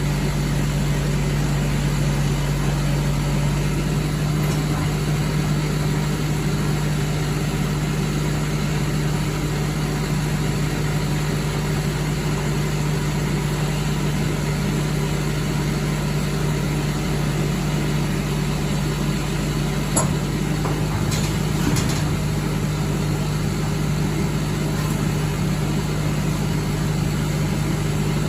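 Lorry engine running steadily at an even pitch, with a few faint clicks about 20 to 22 seconds in.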